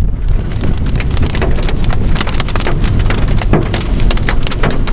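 Heavy rain hitting the roof and windshield of a moving car, a dense run of sharp taps over the car's steady low rumble.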